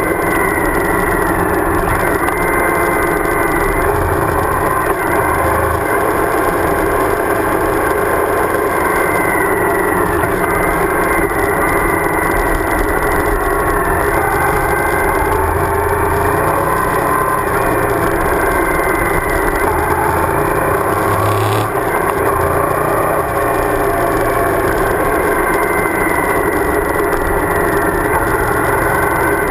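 Suzuki DL1000 V-Strom's V-twin engine running at a steady cruising pace, mixed with wind rush and road noise from riding.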